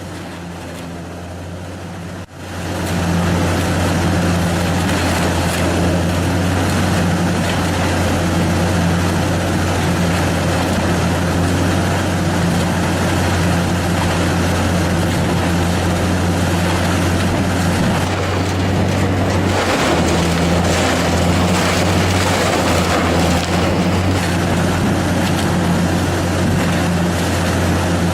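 Heavy diesel machinery running steadily, a constant low engine drone with grinding noise over it. The sound drops out sharply about two seconds in and comes back louder, and shifts slightly in tone about two-thirds of the way through.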